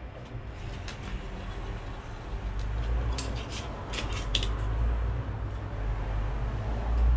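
Handling noise as an LED grow light's driver is lined up on the light frame: a few light clicks and taps about three to four seconds in, over a low rumble that swells near the end.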